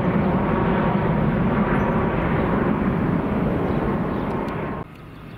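Jet airliner engines, a loud low rumble that slowly fades, then cuts off abruptly near the end.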